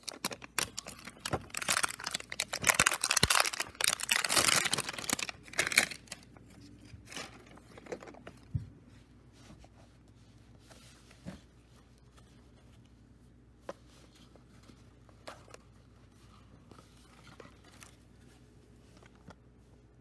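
Plastic shrink wrap being torn open and pulled off a multi-pack of cassette tapes, loud for the first six seconds or so. After that come only fainter crinkles and a few light clicks of the plastic cassette cases being handled.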